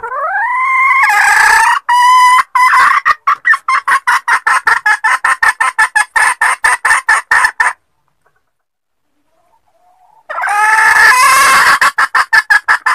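A red junglefowl hen cackling: a drawn-out call rising in pitch, then a rapid run of short notes, about five a second. After a short pause the call starts again. It is a hen call used as a lure to draw in junglefowl of both sexes.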